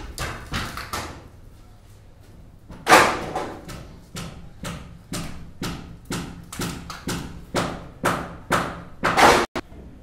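Shuttering under a freshly cast concrete slab being struck over and over to knock it loose. Sharp knocks come about two a second, each trailing off in echo, with a pause of about two seconds near the start. The last few knocks are the loudest.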